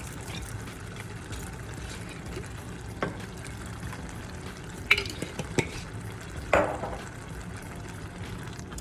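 A spoon stirring meat and marinara sauce in a hot pot over a steady low sizzle, with a few sharp knocks of the spoon against the pot near the middle.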